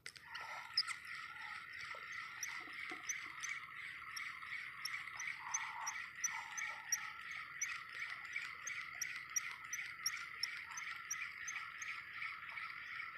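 Spinning reel being cranked at a steady pace to retrieve a lure: a continuous gear whir with a regular tick about two or three times a second.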